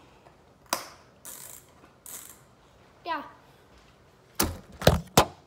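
The recording device is handled close to the microphone. A click is followed by two short rustles, then a brief vocal sound, and near the end three loud knocks in quick succession.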